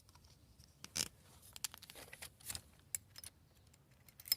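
Faint, scattered clicks and brief light scrapes of handling, with no drill running.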